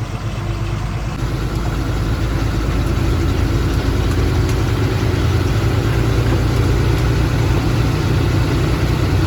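Loaded truck's diesel engine running and pulling away, getting louder over the first few seconds and then holding a steady drone.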